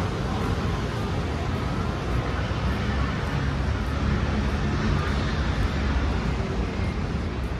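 Steady city street noise from traffic passing on the road.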